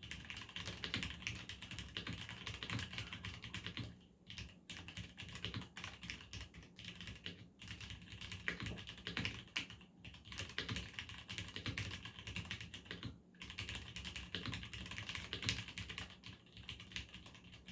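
Steady typing on a Cherry MX Board 3.0S mechanical keyboard with linear Cherry MX Black switches: a dense run of soft keystroke clacks with a few short breaks, the keys well damped with little case ring.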